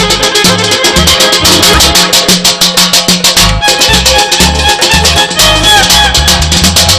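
Live folk music: rapid, driving frame-drum (gaval) strokes under a gliding bowed kamancha melody.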